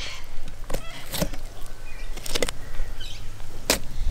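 A filleting knife scraping and crunching along a barramundi's rib bones in about four short, sharp strokes, over a steady low rumble.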